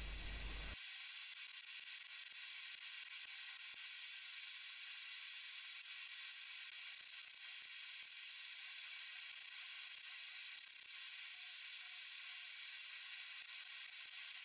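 Faint steady hiss, with almost nothing in the low range and no distinct hammer blows.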